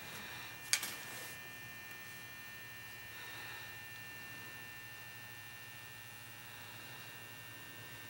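Steady low mains hum from a Kitchenaid long-slot toaster running with its elements heating, and a single sharp click about a second in.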